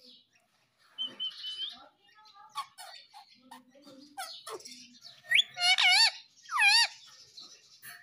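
Indian ringneck parakeet chattering softly, then two loud warbling calls with a fast-wobbling pitch a little past halfway.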